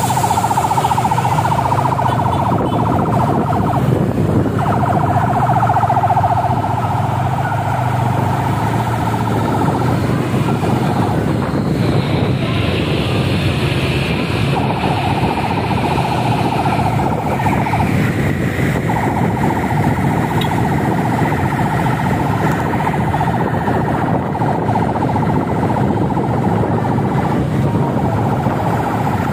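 An escort siren sounding in long, steady stretches with short gaps, over the engine and traffic noise of a slow convoy of cars and motorcycles.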